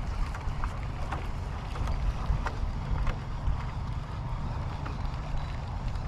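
Wind buffeting the microphone on an open fishing boat: a steady low rumble, with a few faint scattered ticks.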